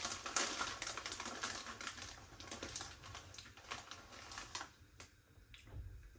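Close-miked chewing of a crunchy Kurkure corn, rice and dal snack: a fast run of crisp crackling crunches that dies down about five seconds in.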